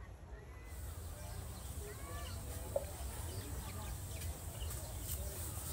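Outdoor background noise with a steady low rumble, a few faint chirping calls, and one sharp click just under three seconds in.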